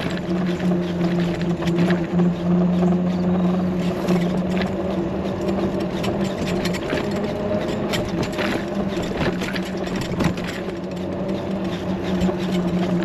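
A motor running with a steady, even hum that weakens a little midway and comes back, over a background hiss with scattered clicks.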